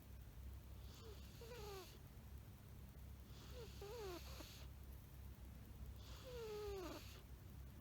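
An old cat snoring softly in its sleep: three breaths about two and a half seconds apart, each a short raspy hiss with a squeaky whistle that falls in pitch.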